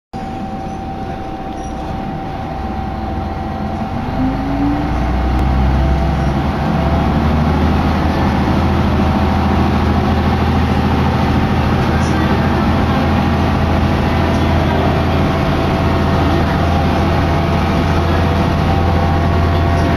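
Diesel railcar's engine and running gear heard from inside the carriage as the train gathers speed, the engine note climbing and growing louder over the first six seconds or so, then settling into a steady drone.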